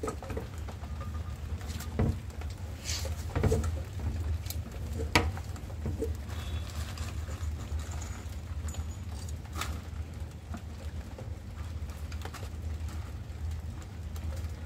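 Scattered clicks and knocks of a screwdriver and hand tools working on a wall-mounted electrical switchboard, over a steady low rumble.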